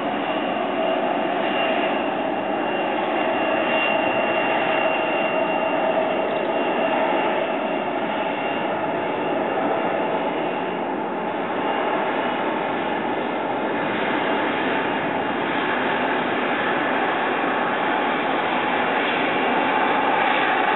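Jet airliner's engines running steadily on the runway, heard from a distance: an even rush with a faint steady whine on top, neither building nor fading.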